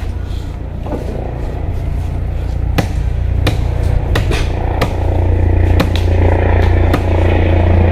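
An engine running steadily at a low pitch, getting louder and fuller about five seconds in, with several sharp knocks or cracks above it.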